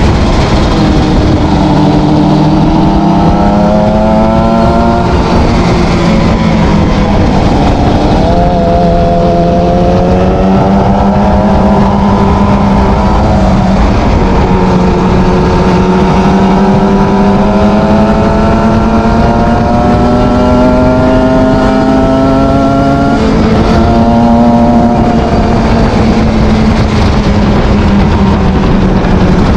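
Kawasaki ZX 300 R motorcycle engine and exhaust, accelerating through the gears. The pitch climbs steadily and drops sharply at each upshift, about six times.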